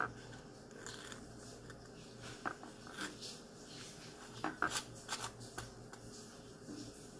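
Metal spoon spreading cream cheese across toast: a run of short scrapes and clicks as the spoon drags over the bread, busiest about four to five seconds in.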